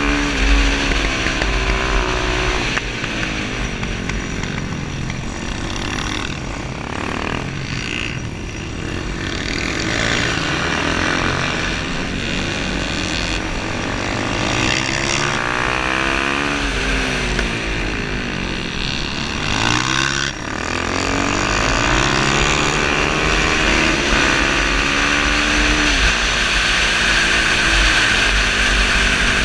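Suzuki DR-Z400SM supermoto's single-cylinder four-stroke engine under race riding, heard from the rider's helmet: the revs climb and fall again and again with gear changes, braking into corners and accelerating out. There is a short drop in revs about two-thirds of the way through.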